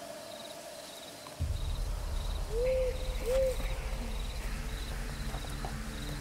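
Night-time woodland ambience: crickets chirping in a regular pulse, and an owl hooting twice about halfway through. A low steady rumble comes in suddenly a little over a second in.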